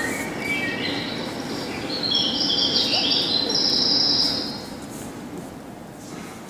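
High-pitched whistling tones, several overlapping, stepping upward in pitch over the first couple of seconds, loudest in the middle, then fading away.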